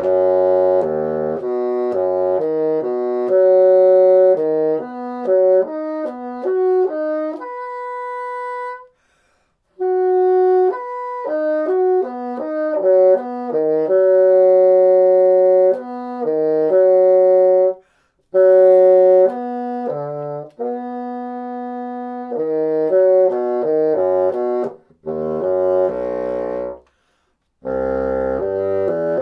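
Moosmann bassoon playing broken arpeggios, runs of quick notes that step up and down through the chord, broken by a few short pauses.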